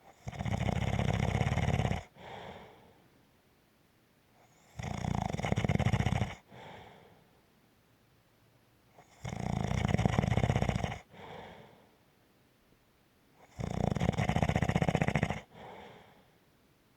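Steady snoring: four loud snores, each about two seconds long and coming every four to five seconds, each followed by a shorter, quieter breath out.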